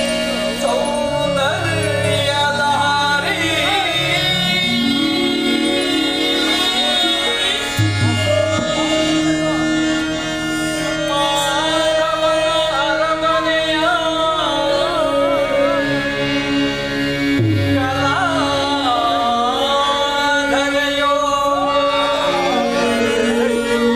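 Harmonium playing held chords and a stepping bass line under a voice singing an ornamented Carnatic-style melody, with no break.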